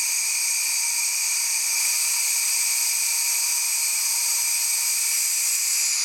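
Compressed air hissing out of a resin-casting pressure pot through its opened release valves as the pot is depressurized: a loud, steady, noisy hiss with a whistling edge.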